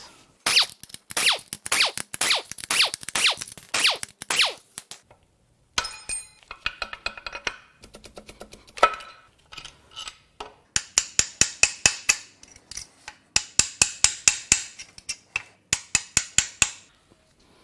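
Main bearing caps and their bolts being worked loose from a Ford 4.0L SOHC V6 block: runs of rapid metallic clicks and rattles, with ringing clinks of loose steel parts and a short pause about five seconds in.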